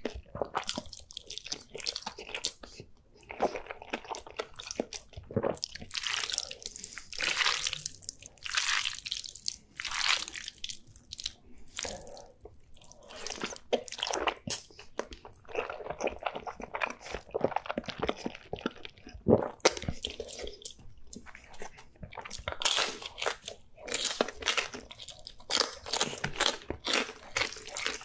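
Wet chewing and slurping of thick sauce-coated noodles and dumplings, with irregular smacking mouth sounds throughout.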